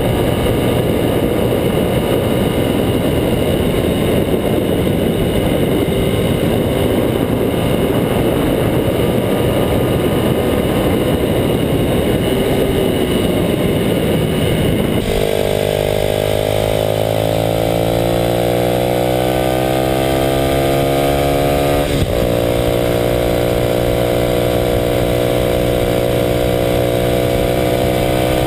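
Kawasaki KLX250SF's single-cylinder four-stroke engine through a Muzzy exhaust, ridden at speed. For the first half the engine is buried under wind rush. Then its note comes through clearly and climbs steadily as the bike accelerates, dipping once with a short click at an upshift about two-thirds of the way in before climbing again.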